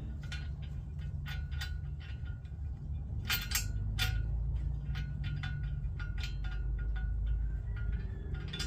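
Nuts, washers and bolts clinking and tapping as they are handled and threaded by hand during skid-plate installation, in many irregular small metallic clicks, over a steady low hum.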